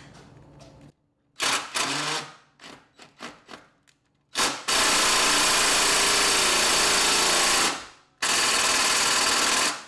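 Impact driver hammering on a seized Allen bolt at the bottom exhaust mount: a short burst and a few knocks, then two long steady runs of about three seconds and a second and a half. The bolt does not break loose.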